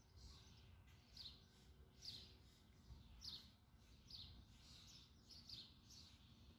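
Faint outdoor birdsong: a songbird giving a series of short, high chirps that slide downward in pitch, repeated about once a second, over a low background rumble.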